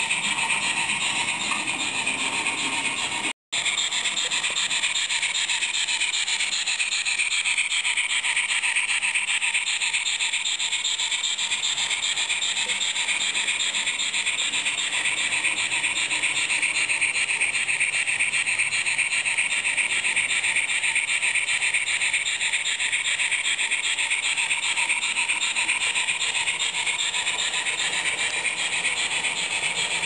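Roco H0-scale model steam locomotive's sound decoder playing continuous steam chuffing through its small onboard speaker as the model runs, a thin high-pitched rushing sound. It cuts out for a split second about three seconds in.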